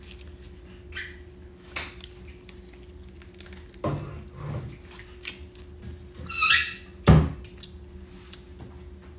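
Boiled crawfish being peeled by hand in nitrile gloves: scattered small cracks and crackles of shell, with dull knocks about four and seven seconds in, the second the loudest, and a short squeak just before it.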